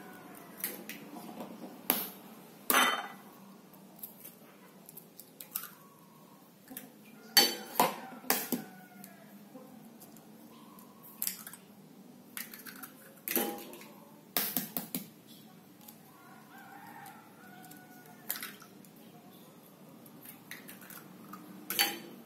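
Hen's eggs being cracked one after another onto a plate: sharp taps of the shells against the dish, and clicks as the shells are broken open, in small clusters a few seconds apart.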